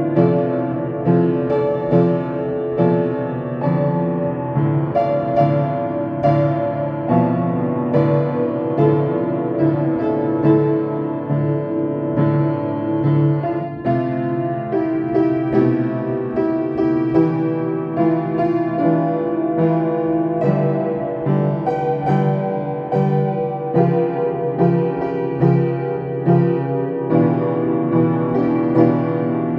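Piano playing: chords and a melody line struck in a steady, even rhythm.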